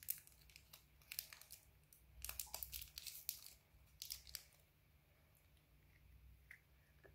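Candy wrapper being crinkled and torn open by hand: quick bursts of crackling over the first four seconds or so, then it falls quiet.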